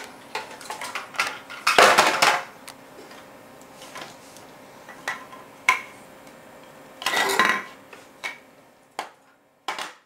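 A toddler's hands handling hard toys on a tiled floor: scattered clicks and knocks, with two longer bursts of clattering, one about two seconds in and one about seven seconds in.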